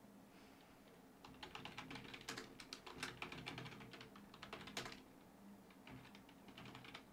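Computer keyboard typing: a quick run of key clicks starting about a second in and lasting about four seconds, then a few sparser keystrokes near the end.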